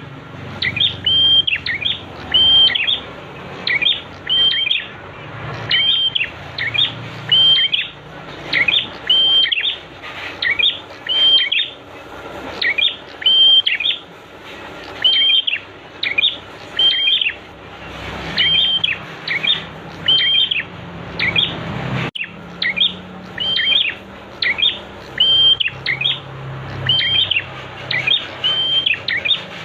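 Prinia (prenjak) song: short, sharp chirping phrases repeated over and over, about one or two a second, over a steady rush of flowing water. About 22 seconds in the sound drops out for an instant.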